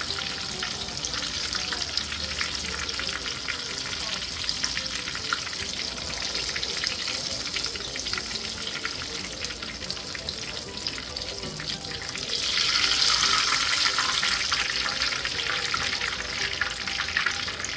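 Egg rolls deep-frying in hot oil in a cast-iron skillet, a steady sizzle with fine pops. It swells louder for a couple of seconds about twelve seconds in.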